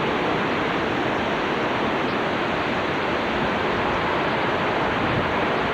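Hurricane-force wind blowing with driving rain in the storm's eyewall, a loud, steady rush of noise with no letup, with wind buffeting the microphone.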